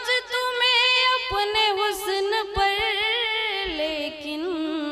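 A woman singing Hindi-Urdu verse solo into a microphone, drawing out long ornamented notes that waver in pitch. Her voice falls to a lower note near the end.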